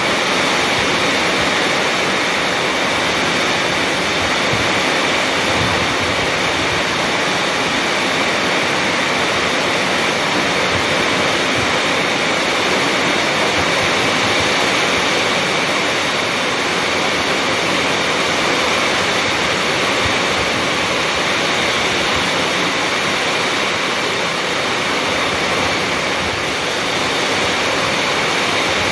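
Heavy rain falling steadily on a concrete patio and potted plants, a constant even rush of rainfall.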